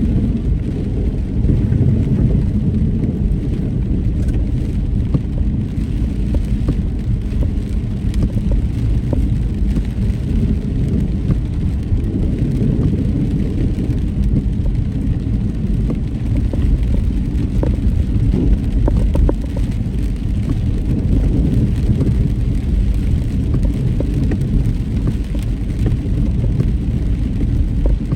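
Steady low rumble of a car on the move, engine and tyres on the road.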